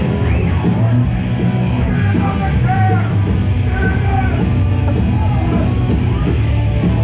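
Loud rock music with vocals.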